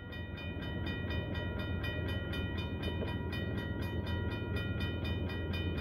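Railroad crossing bell ringing in rapid, evenly spaced strokes, the crossing's warning signal activated for an approaching train. A low rumble underneath slowly grows louder.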